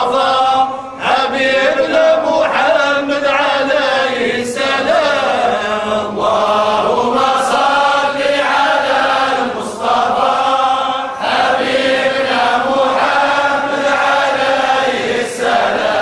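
A group of men chanting a Sufi devotional poem (samaà) together in long melodic phrases, with short breaks between phrases.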